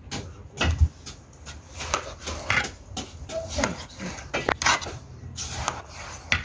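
Cutlery and dishes clinking and knocking at a meal table, in irregular short clinks.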